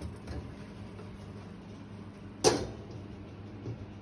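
A metal roasting pan clanks once, sharply, as it is taken out of a hot oven, over the low steady hum of the oven's fan.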